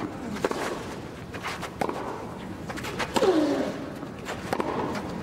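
Tennis balls struck back and forth in a baseline rally on a grass court: a sharp pop of racket on ball about every second over a hushed crowd. About three seconds in, a loud voice gives a falling cry together with one of the hits.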